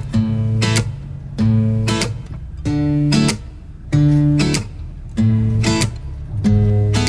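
Background music: an acoustic guitar strumming chords about once a second over a steady bass line, with no singing yet.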